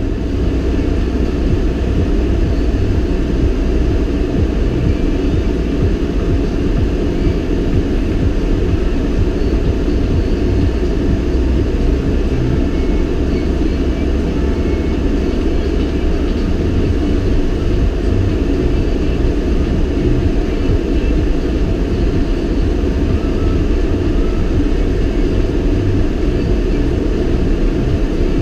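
Steady low rumble of a vehicle driving slowly along a snow-packed street, heard from on board: engine and tyre noise.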